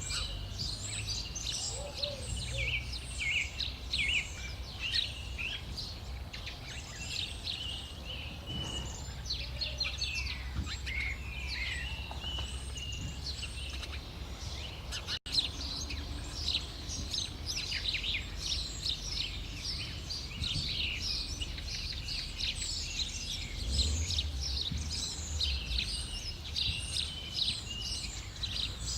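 Many birds chirping and twittering together, a dense chorus of quick high calls over a steady low outdoor rumble, broken by a brief dropout about halfway through.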